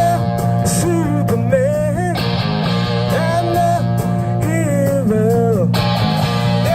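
Live punk rock band playing: electric guitars over a steady low bass line, with a melody line that bends up and down in pitch. A loud noisy burst, like a cymbal crash, comes in twice, about a third and near the end.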